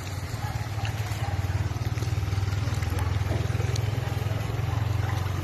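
Motorcycle engine running with a steady low rumble, its loudness pulsing rapidly and evenly.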